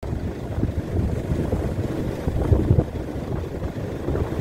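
Wind buffeting the phone's microphone in uneven gusts, over waves washing up the beach.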